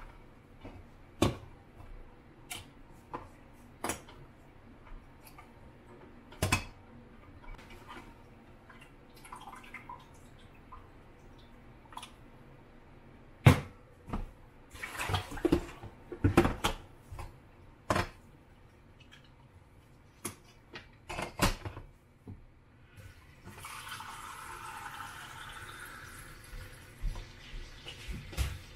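Plastic film-developing reel and tank handled in a stainless steel kitchen sink: scattered clicks and knocks, with a run of louder clatters in the middle. About two-thirds of the way through, tap water starts running steadily into the developing tank, washing the film.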